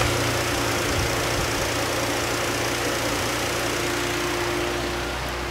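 Peugeot 208's 1.2 three-cylinder petrol engine idling steadily, with the electric radiator fan running at the same time, forced on because the engine management has dropped into default mode.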